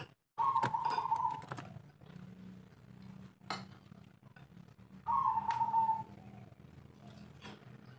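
Spotted dove cooing: two phrases, one about half a second in and another about five seconds in, each about a second long, over a faint steady low hum.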